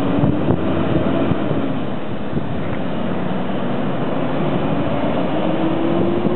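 Fire engine driving past on a city street: a steady rush of its diesel engine and tyres, with a faint engine note that rises slightly near the end.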